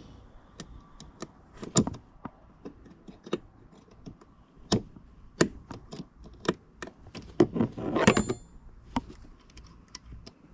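Irregular clicks, taps and knocks of small hard parts being handled, with a brief burst of rattling about eight seconds in.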